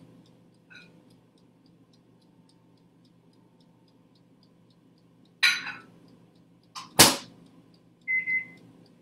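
Countertop air-fryer toaster oven running with a steady hum and a light ticking about four times a second. Two sharp knocks come about five and seven seconds in, then a short beep near the end.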